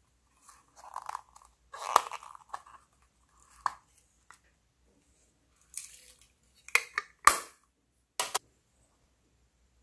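A small plastic snap-lid case being handled: a few sharp plastic clicks and snaps as its lid is worked, with brief rustling and rattling of small confetti pieces.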